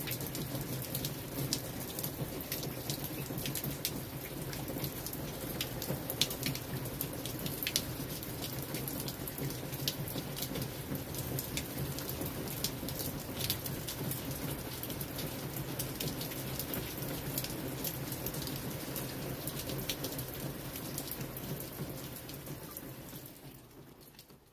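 Steady rain falling on wet brick pavement, with many sharp individual drop splashes; it fades out over the last couple of seconds.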